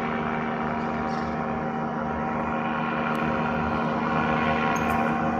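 A steady engine drone holding one even pitch.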